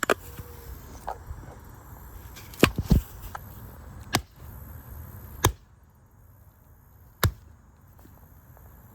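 Seagate 12 TB hard drive being struck hard about six times at irregular intervals, each blow a sharp, loud crack as the drive is deliberately smashed to destroy it.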